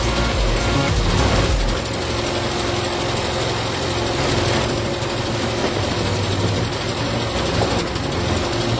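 Engine of a hydraulic log splitter running steadily, with a heavy low rumble that thins out about two seconds in.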